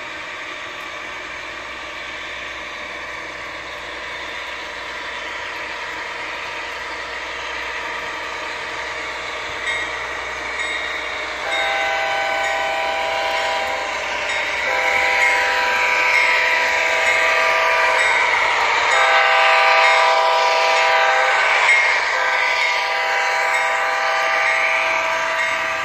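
Model train's sound-equipped diesel locomotive blowing a multi-chime horn in four long blasts with short gaps, over the steady running rumble of the model train on the track, which grows louder as the train comes closer and its freight cars roll past near the end.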